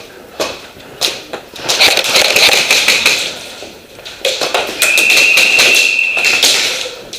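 Heavy breathing into a full-face mask close to the microphone: two long, loud, hissing breaths, the second with a thin whistle through the mask. A few sharp clicks come in the first second.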